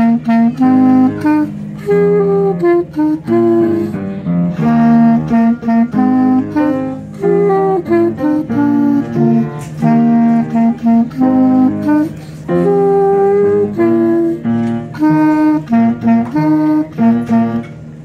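Clarinet playing a melody, mostly short notes in quick succession with brief gaps between phrases.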